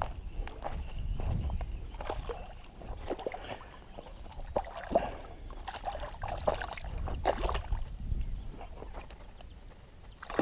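Water sloshing and splashing with scattered knocks and clicks as a hooked largemouth bass is fought and reeled in on ultralight tackle.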